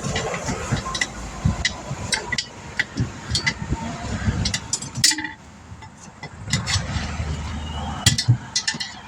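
Metal tools and parts clinking and knocking as they are handled, in a quick irregular run of sharp clicks, with road traffic rumbling past underneath.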